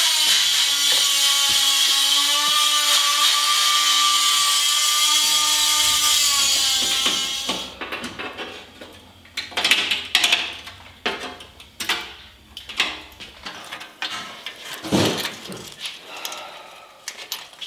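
Dremel rotary tool grinding metal: a steady high-pitched whine over a hiss for about seven seconds, sagging a little in pitch before it winds down. After that, scattered clicks, knocks and rattles of a metal panel being handled.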